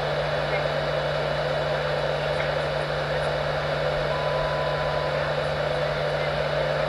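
Steady, even whir of an electric air blower's motor and rushing air, with a low hum underneath and no change in pitch or level.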